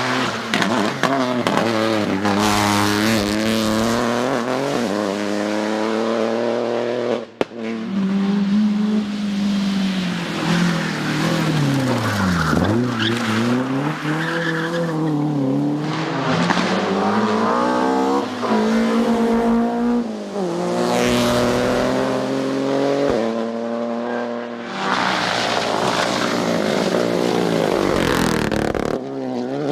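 Rally car engines revving hard, the pitch climbing and dropping again and again through gear changes, braking and acceleration. The audio is several clips joined by sudden cuts, the first about seven seconds in.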